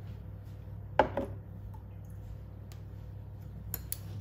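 Metal spoon knocked against a hard kitchen surface: one sharp knock about a second in with a lighter one just after, then a couple of faint ticks near the end, over a steady low hum.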